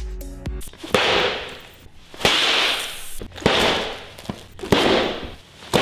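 Motorcycle airbag vest inflating, four times: each a sharp pop followed by a rush of gas that fades over about a second, the four evenly spaced about a second and a quarter apart.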